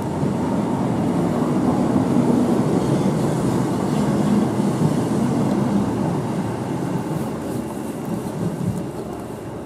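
Class 399 tram-train pulling into the platform and running close past: electric drive and steel wheels on rail. It is loudest a few seconds in and fades away in the second half as it slows.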